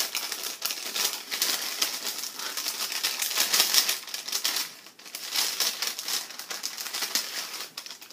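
Small plastic baggie crinkling and rustling in dense crackles as it is handled and opened, with a brief lull about five seconds in.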